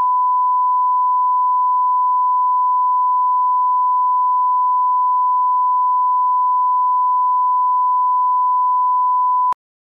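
1 kHz reference test tone accompanying SMPTE colour bars: one steady, unwavering beep, a line-up signal for setting audio levels, that cuts off suddenly near the end.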